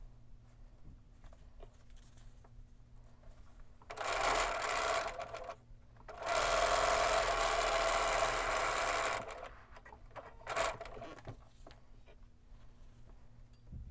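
Bernina B 770 Quilter's Edition sewing machine stitching a quarter-inch seam through a pair of fabric Dresden blades, in runs: about a second and a half starting four seconds in, a longer run of about three seconds from around six seconds, and a brief burst near ten and a half seconds. Between the runs there are faint sounds of fabric being handled.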